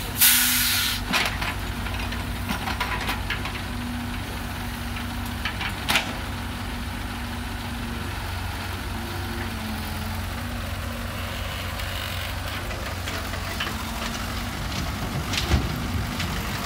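Heavy construction machine's diesel engine running steadily. A short, loud hiss comes just after the start, and single knocks come about six seconds in and near the end.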